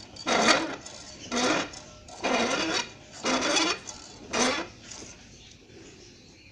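Hand air pump being worked in steady strokes to pressurise a plastic bottle, one hissing stroke about every second, stopping about five seconds in.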